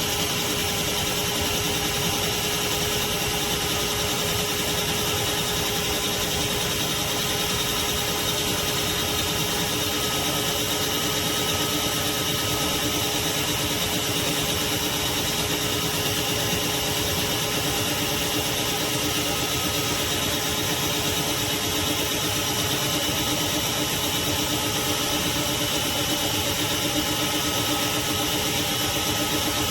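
Craftsman 16-gallon, 6.5 peak HP wet/dry shop vacuum running steadily: a constant rush of air with a steady motor whine.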